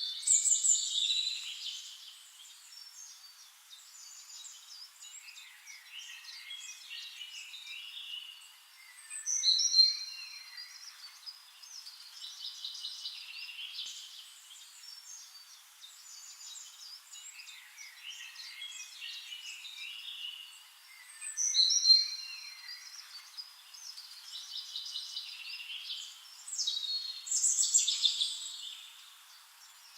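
Nightingale singing: a run of varied, high, fast phrases, with louder bursts every several seconds and softer warbling and twittering between them.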